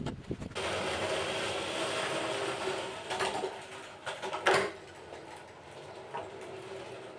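Casters of a home-made engine dolly rolling over the ground under a spare Morris engine: a steady rolling noise for about four seconds, with a knock about three seconds in and a louder one about a second later, then quieter.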